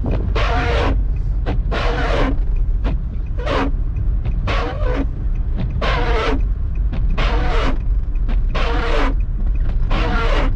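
Inside a car driving through deep snow: a steady low rumble from the engine and road, with a windshield wiper sweeping with a regular swish about every second and a half.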